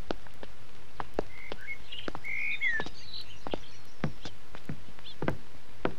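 Footsteps of several people walking on a hard floor, a steady run of taps, with birds chirping high and briefly between about one and three seconds in.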